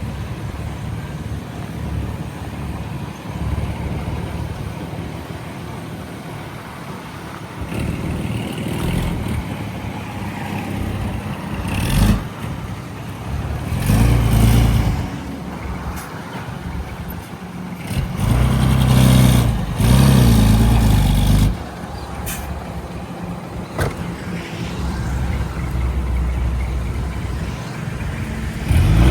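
Heavy diesel machinery running steadily, the engine noise swelling loudly several times as it works under load, with a brief sharp peak about twelve seconds in.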